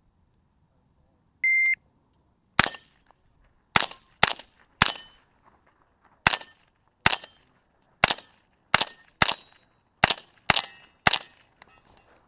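Shot timer beeps once, then a rifle fires twelve shots at uneven spacing, some in quick pairs, over about eight and a half seconds: the start signal and a timed string of fire.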